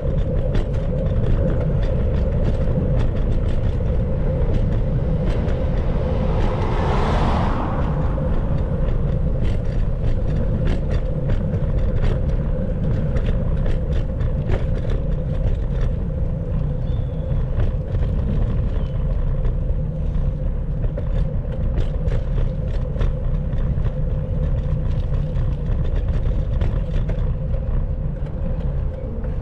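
Wind rumbling on the microphone of a moving bicycle, with road noise and a steady hum, small rattles and ticks throughout, and a brief swelling rush about seven seconds in.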